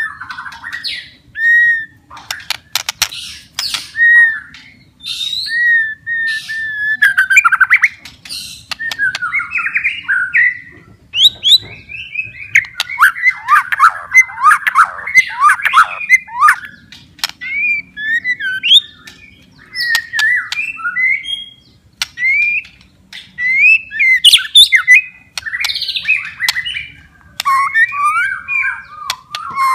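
White-rumped shama in full, vigorous song. It gives a long, varied run of clear whistles, gliding and falling phrases, fast warbled trills and sharp clicking notes, with hardly a pause.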